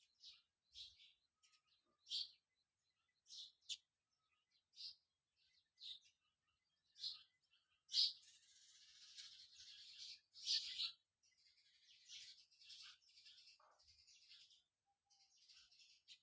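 Small birds chirping: short, high, separate chirps about once a second, then from about eight seconds in a continuous high twittering chatter with louder chirps over it.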